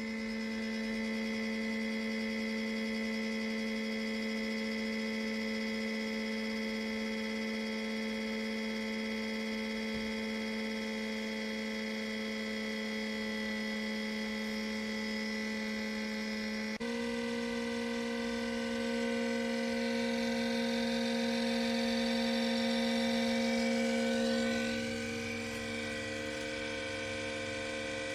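Coolfiqu 6L humidifier running: a steady electrical hum whose pitch steps slightly higher about 17 seconds in, swelling a little louder for a few seconds after that.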